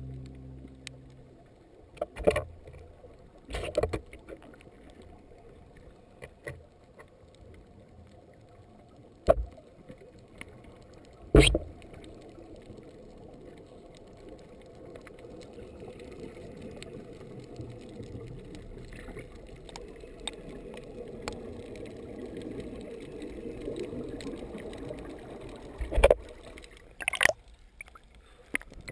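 Muffled underwater sound picked up by a camera in a waterproof housing: a faint low wash of water, broken by about six sharp knocks and clicks.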